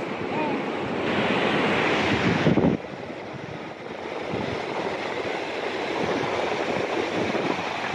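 Ocean surf washing on the shore, mixed with wind rushing on the microphone; the noise drops abruptly to a lower level a little under three seconds in.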